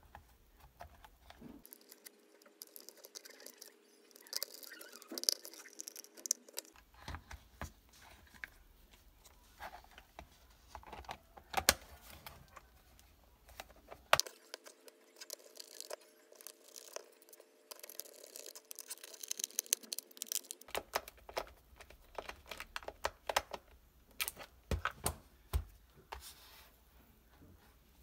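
Hands handling the plastic parts of an ultrasonic humidifier: scattered small clicks, taps and rubbing of hard plastic pieces and cable at irregular times, a few sharper knocks among them.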